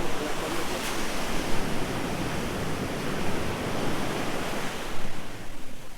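Steady outdoor rushing noise with no distinct events, thinning out a little near the end.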